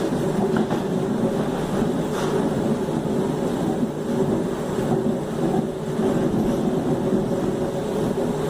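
Traction motors of a CPTM Series 1700 (Mafersa/Hitachi) electric multiple unit running: a steady hum with a few held tones, mixed with the train's running noise.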